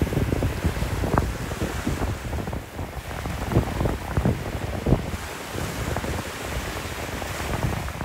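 Small waves washing up onto a sandy shore, with wind buffeting the microphone in irregular low gusts.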